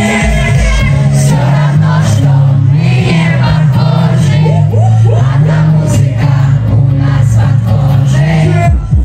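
Live pop music played loud through a concert PA and heard from the audience: held bass-synth notes under singing, with no drum beat. The pulsing beat comes back in right at the end.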